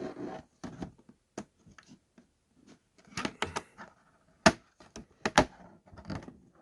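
Cardboard and plastic packaging being handled and opened by hand: scattered sharp clicks, taps and short scrapes, with the loudest snaps about four and a half and five and a half seconds in.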